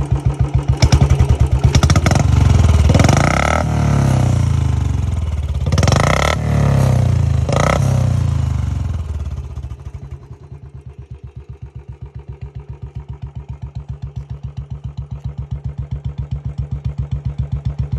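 Royal Enfield Bullet Standard 350's single-cylinder engine, breathing through an aftermarket short-bottle silencer, revved in several blips on the stand. About nine seconds in it drops back to an even, pulsing thump at idle.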